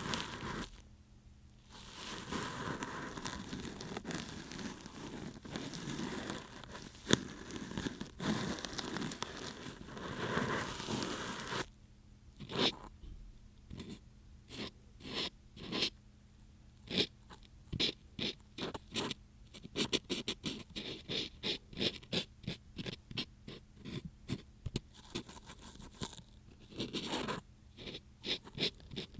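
Ear pick scraping in an ear, up close. There is a continuous rough scratching for about the first dozen seconds, then quick separate strokes, several a second, for the rest.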